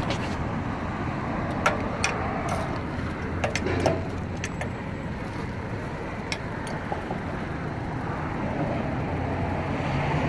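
Steady road traffic noise from passing cars, with a handful of sharp, irregular clicks in the first seven seconds or so.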